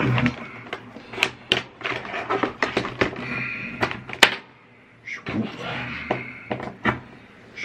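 Handling noise: a run of small clicks, knocks and rustles as a USB cable is unwound and plugged in among plastic parts on a desk, with one sharp click about four seconds in.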